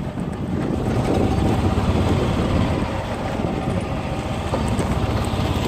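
A golf cart being driven, giving a steady low rumble as it rolls along.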